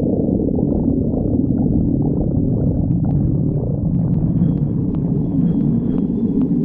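Stomach growling: a continuous low, churning rumble whose pitch wavers slowly up and down.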